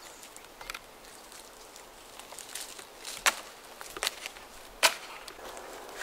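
Sharp snaps of dry twigs and pine branches with footsteps on the forest floor. A few separate cracks, the loudest a little past three seconds and near five seconds in.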